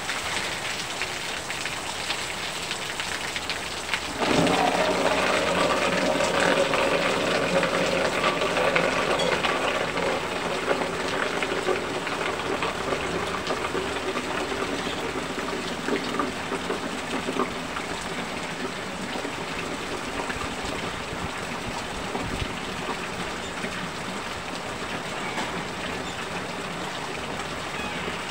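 Heavy rain falling steadily, with water streaming down from a roof edge. About four seconds in, the sound suddenly grows louder, then dies away over several seconds.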